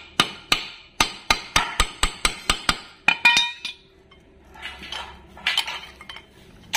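Hammer tapping a 6001 ball bearing into the end of a steel swing-arm pivot tube: about a dozen quick metal-on-metal blows, roughly four a second, the last one ringing. Softer clinks of the metal parts being handled follow.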